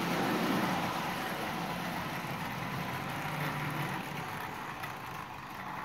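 Marx tinplate diesel locomotive running on three-rail tubular track, its electric motor humming steadily with the wheels rolling on the rails. It is running slowly on DC power, and the hum eases off slightly near the end.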